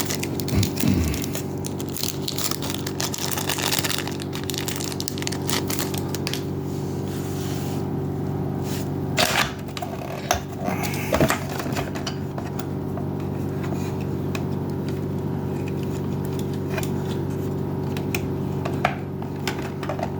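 Scattered small scrapes and clicks of a metal SIM-card ejector pin probing inside a Keurig K-Supreme's plastic housing to press its thermal reset switch, over a steady background hum.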